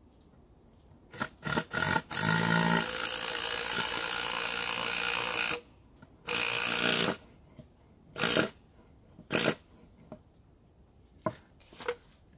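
Cordless drill running in bursts as he works on the log and its side board: one long run of about three and a half seconds, then a run of about a second and two short pulls of the trigger. A few knocks come before the first run, and clicks come near the end.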